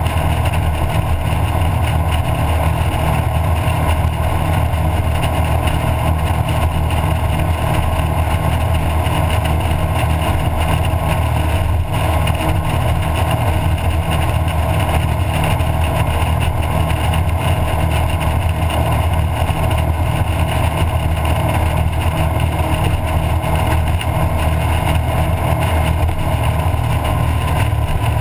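Twin Mercury 496 Mag 8.1-litre V8 engines of a Formula 33 SS powerboat running steadily at wide-open throttle, about 60 mph, with the rush of the churning wake behind the stern.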